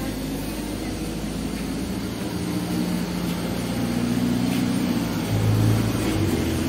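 A PAZ-320414-05 Vektor city bus's engine heard from inside the passenger cabin, pulling away and picking up speed, its note rising and growing louder from about two seconds in, over road and cabin rattle noise.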